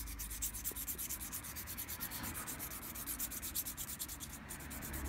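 800-grit sandpaper rubbed back and forth along the edge of a vegetable-tanned leather piece: a steady rasping of quick, even strokes, several a second. This is the final sanding of the leather edge, with hardly any dust coming off at this stage.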